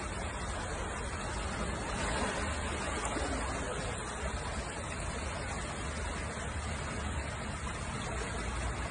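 Steady rushing road noise of a moving car, with a low rumble underneath and no distinct knocks or horns.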